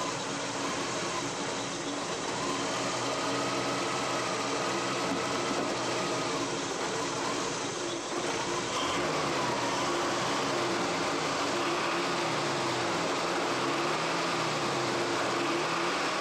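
Truck engine running on gasoline vapor drawn from a homemade vapor chamber through the carburetor, with no liquid fuel reaching the carburetor. It runs steadily, its pitch wavering and, in the second half, rising and falling slowly.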